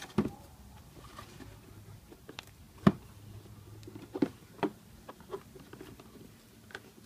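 Hands working a tight-fitting cardboard lid off a board game box: a scattered handful of light knocks and rubs of cardboard, the sharpest about three seconds in.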